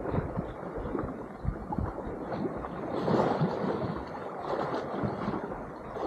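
Sea water sloshing and lapping around the microphone, muffled, with a swell about three seconds in and wind buffeting the microphone.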